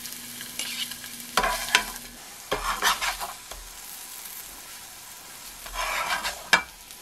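Flour-dusted tofu slices sizzling in oil in a nonstick frying pan, with a spatula scraping against the pan several times as pieces are turned and lifted out, and one sharp tap near the end.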